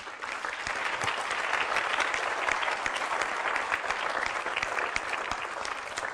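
Audience applause: many people clapping at once, swelling in the first second and then holding steady.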